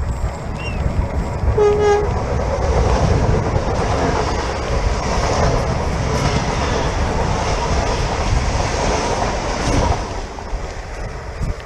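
Electric commuter train sounding a short horn blast about two seconds in, then passing close by with a loud rush of wheels and air that drops away near the end.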